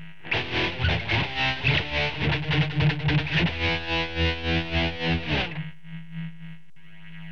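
Ibanez RG370DX electric guitar played through a Line 6 POD 2.0 with its tremolo effect, the volume pulsing steadily about three times a second. The playing stops about five and a half seconds in, leaving a steady hum from the rig and a single click near the end.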